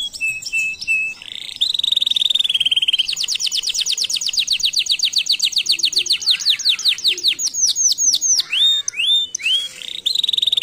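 Canary singing a continuous song of rapid trills. It opens with a few short notes, then a fast rolling trill, then a long run of quick repeated down-slurred notes. These slow into separate notes, and a fast trill comes back near the end.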